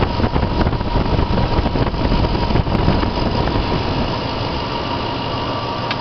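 Toyota 4.7-litre i-Force V8 idling steadily, heard close up in the open engine bay; it runs smoothly and purrs.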